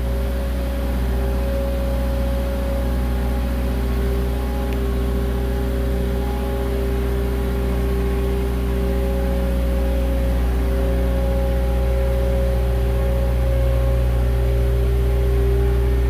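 Skid-steer loader's engine running steadily with a deep hum, getting a little louder toward the end.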